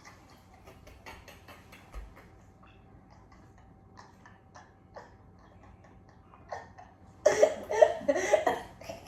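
Faint scattered clicks and crackles of crab shells being picked apart and eaten. About seven seconds in, a loud vocal burst breaks in, closest to a cough.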